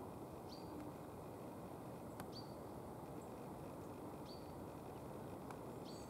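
Four short, high, thin bird call notes, each dipping quickly and then holding briefly, repeated about every two seconds over a steady low background hiss.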